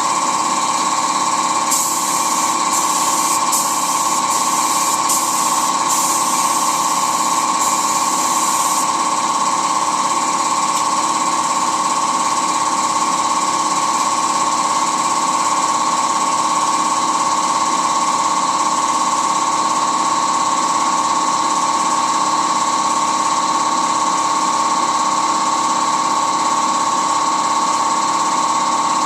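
Air compressor motor running steadily with a constant hum, with several short bursts of high hiss in the first nine seconds or so.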